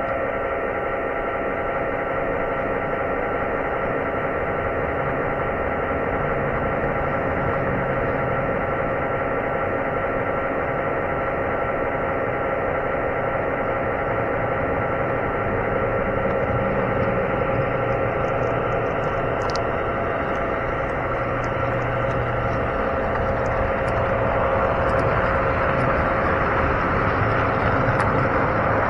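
O scale model train running along the track, heard from a camera riding on one of its cars: a steady hum of motor and rolling wheels, with a few faint clicks in the last third.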